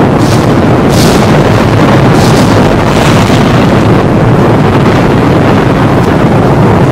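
Loud thunderstorm: continuous rolling thunder, with a few sharper cracks in the first few seconds.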